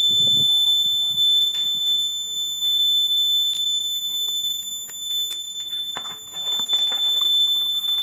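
Small electronic buzzer of a homemade laser tripwire alarm sounding one steady, high-pitched tone: the alarm is triggered as soon as its 9-volt battery is connected. Light clicks and rustling from the battery and cardboard box being handled sound over it.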